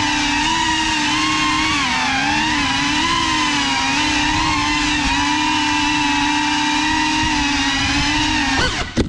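Cinelog 35 cinewhoop FPV drone's motors and propellers whining steadily, the pitch wavering slightly with throttle. Near the end the pitch drops, there is a sharp knock, and the motors cut off abruptly as the drone crashes into furniture.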